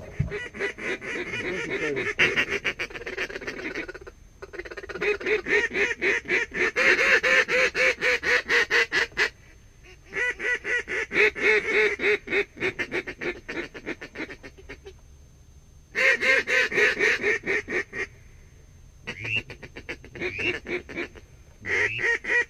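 Duck call blown in rapid, even runs of quacking chatter, several seconds at a time with short pauses between them, close and loud.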